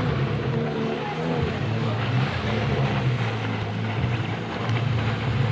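Personal watercraft engines running, a steady drone with wind on the microphone.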